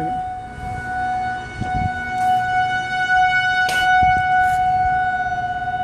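Outdoor tornado warning siren sounding one steady, unwavering tone, with a couple of brief knocks of handling noise.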